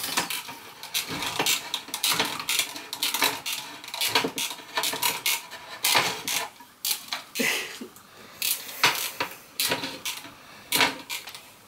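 A hand can opener working round the rim of a metal tin can, with many irregular clicks and metallic scrapes as it is turned and repositioned.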